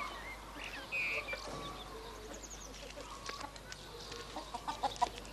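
A hen clucking faintly in a few short calls.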